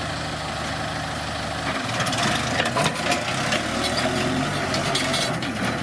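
Kubota M7040SU tractor's diesel engine running steadily under load as it pulls a disc plough through dry soil, with scattered short clicks and knocks from the discs and clods. The engine note shifts slightly about two seconds in.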